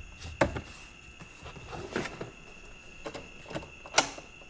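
Four or five short, sharp clicks and knocks, the loudest about four seconds in, over a faint steady high-pitched whine.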